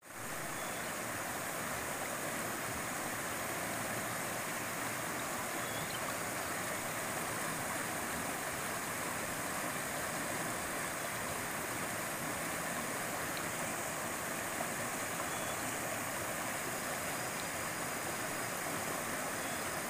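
Shallow river rushing over boulders in small rapids and cascades: a steady, even wash of water.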